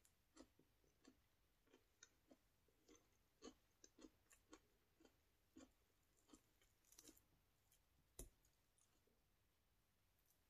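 Very faint, irregular soft clicks and small wet sounds of fingers working a cucumber piece through hummus in a glass bowl, with one sharper knock about eight seconds in.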